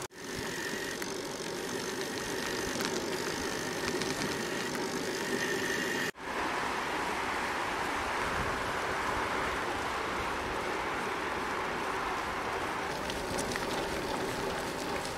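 Steady rushing noise of a bicycle being ridden along an asphalt country road, the tyres rolling with air rushing past, and a faint steady hum in the first few seconds. The sound breaks off for a moment about six seconds in.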